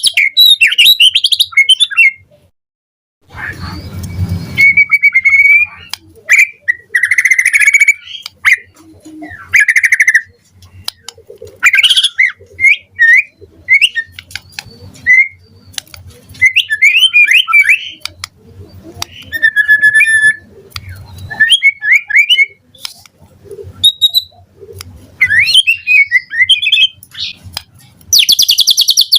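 White-rumped shama (murai batu) singing a long run of quick, varied whistled and chirped phrases, with a short pause about three seconds in.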